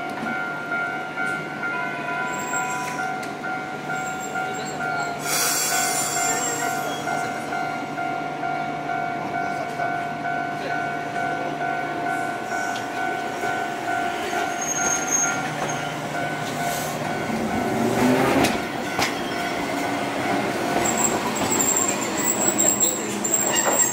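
Japanese level-crossing warning bell ringing in a steady, even two-tone pattern while a Hankai Tramway Mo 351-type tram rolls in over the crossing. The bell stops a few seconds before the end. Then comes a high wheel squeal from the tram's steel wheels on the rails.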